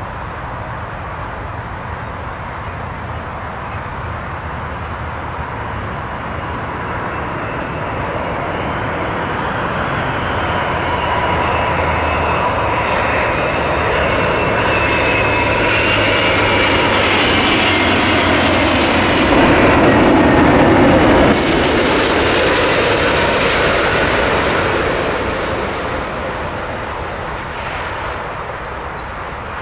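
Airbus A380's four jet engines on landing approach: a steady jet noise that swells, is loudest about two-thirds of the way through, then fades. A high engine whine slides down in pitch as it builds.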